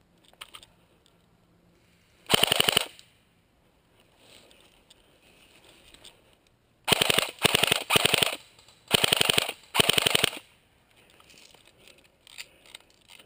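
Electric blowback MP5 airsoft gun firing on full auto in six short bursts, each a rapid string of shots: one about two seconds in, then five in quick succession from about seven to ten seconds in.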